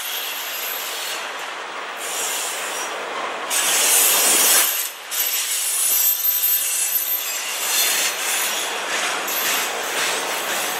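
Loaded flatcars of a freight train rolling past, steel wheels hissing and screeching on the rails, loudest about four seconds in.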